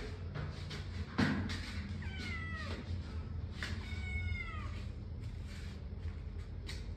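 A domestic cat meowing twice, each call under a second long and falling in pitch. A sharp thump about a second in, just before the first meow, is the loudest sound.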